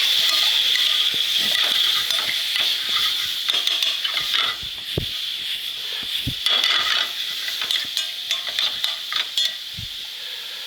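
Shrimp sautéing in olive oil in a pan: a steady sizzle with utensil clinks and scrapes as the pan is stirred. The sizzle eases off over the last few seconds.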